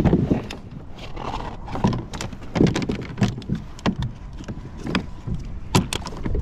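Irregular knocks, clicks and rattles of fishing gear being handled aboard a plastic fishing kayak.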